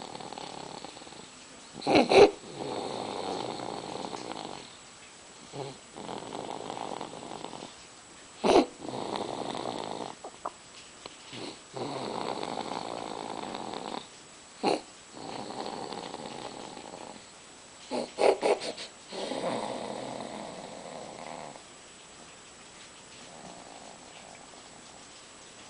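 A baby snoring in sleep: noisy rasping breaths every few seconds. Several breaths begin with short, sharp, loud snorts, the loudest about two seconds in, plus a quick run of three later on.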